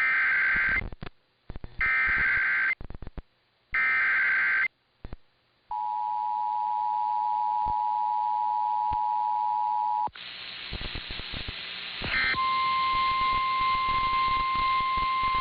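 Emergency Alert System SAME header: three short, harsh, warbling digital data bursts about two seconds apart. Then the steady two-tone EAS attention signal for about four seconds. After a few seconds of hiss, the steady single 1050 Hz NOAA Weather Radio warning alarm tone starts over a background of static.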